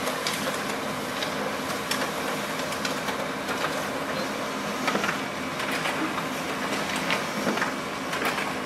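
Brother MFC-L2730DW laser all-in-one making a copy: the document feeder pulls the original through and the print engine runs with a steady mechanical whir and intermittent clicks. A printed page feeds out of the front slot near the end.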